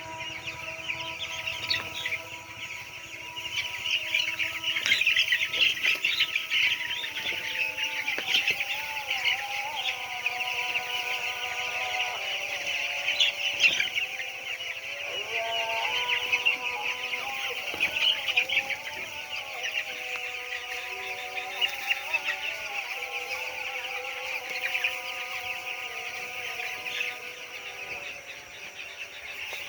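A flock of broiler chicks peeping continuously, a dense chorus of high chirps with louder flurries now and then.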